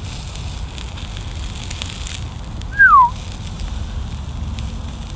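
Steak sizzling on a wire grill rack over campfire coals, with faint crackles from the fire. About three seconds in, one short, loud whistle falls in pitch.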